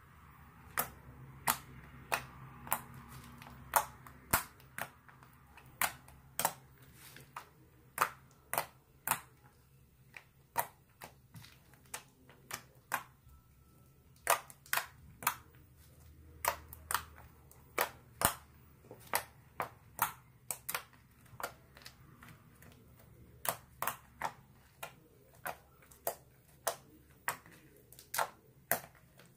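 Clear-glue slime being pressed and folded by hand, giving sharp clicking pops, irregular, about one or two a second.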